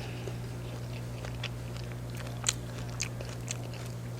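A person chewing food close to the microphone: soft wet mouth clicks and smacks, with a few sharper clicks around the middle.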